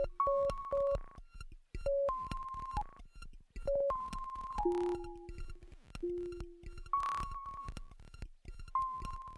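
Electronic music loop played from an Akai Force groovebox: short held synth notes at a few pitches over kick drums and crisp percussion hits, with a brief noise swell about seven seconds in.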